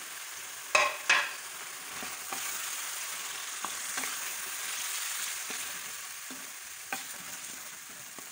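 Raw chicken pieces sizzling in hot oil and tomato masala in a karahi while a wooden spoon stirs and scrapes them round the pan. Two sharp knocks about a second in, then lighter clicks of the spoon against the pan.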